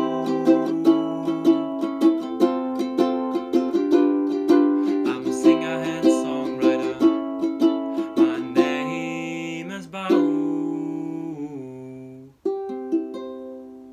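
Ukulele being played in a steady picked and strummed pattern, about two to three notes a second. Near the end one chord is left to ring out and fade, there is a brief break, and then playing starts again.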